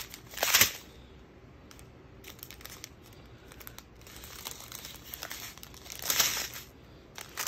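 Crinkling plastic packaging of a diamond painting kit being handled: the plastic-covered canvas and small bags of resin drills rustle in short bursts, loudest about half a second in and again around six seconds in.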